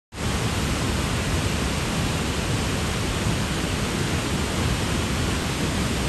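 Large waterfall: a heavy cascade of white water plunging over a rock ledge, making a steady, dense rushing noise that does not let up.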